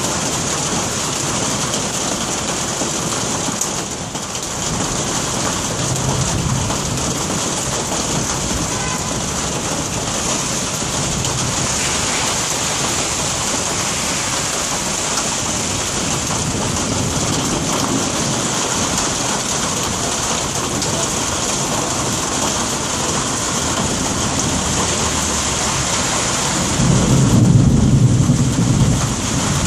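Steady rain falling in a thunderstorm, with thunder rumbling low beneath it; a louder rumble swells near the end.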